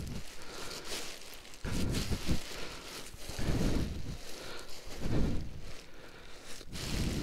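Nylon paraglider wing fabric rustling and crinkling as it is pressed down under knee and hands to squeeze the air out. Four low rumbling swells come about every one and a half seconds.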